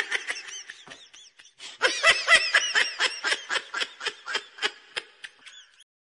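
High-pitched cartoonish laughter sound effect: a rapid run of giggles at about four or five a second, swelling about two seconds in and dying away near the end.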